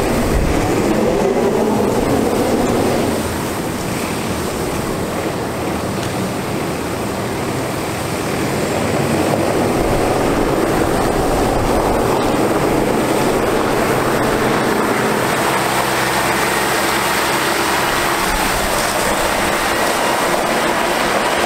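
Water truck's PTO-driven pump spraying water from its front spray heads: a steady rushing hiss of water on gravel over the running Cummins ISC diesel engine.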